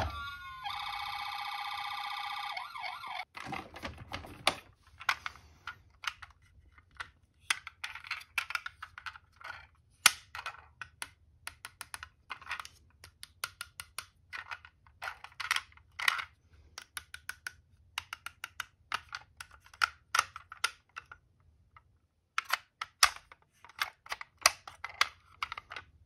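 A toy ambulance's electronic siren sounds for the first few seconds and cuts off. After that come many small clicks and clacks of toy ambulances being picked up and handled in a cardboard box, in irregular clusters.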